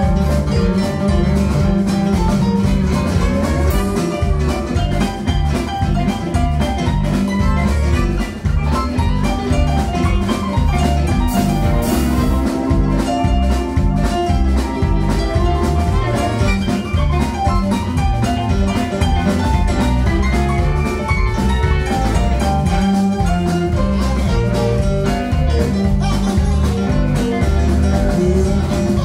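Live band playing with saxophone, electric guitars and drum kit, driven by a steady beat.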